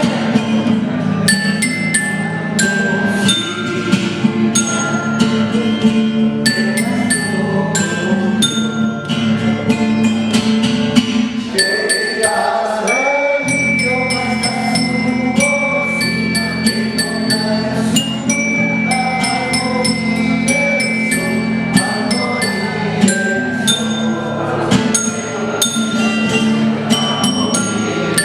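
Homemade tuned-tube keyboard instrument struck with spoons, playing a melody of quick ringing notes over a steady low accompaniment.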